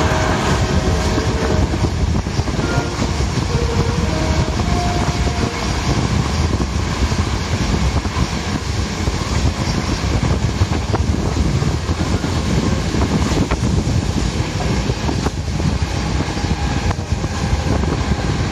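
Passenger train running at speed, heard from inside the carriage: a steady rumble of wheels on rail with a few faint brief whines in the first seconds and an occasional click later on.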